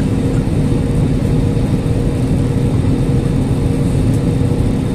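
Jet airliner cabin noise in flight: the turbofan engines and rushing air make a loud, steady drone, with steady low hums running through it.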